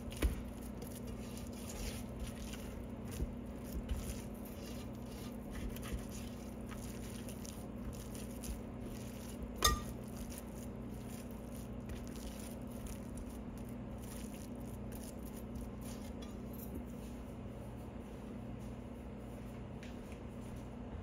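Hand kneading sticky bread dough in a stainless steel bowl: soft squishing and scraping, with scattered sharp clinks against the metal bowl, the loudest about ten seconds in.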